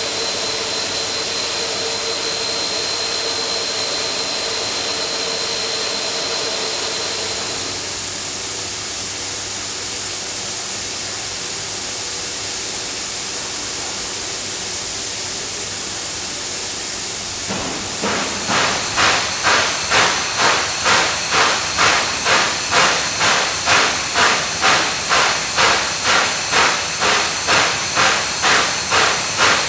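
Steam locomotive at rest giving off a loud steady hiss. About 18 s in, a rhythmic pulsing hiss starts over it, about three beats every two seconds.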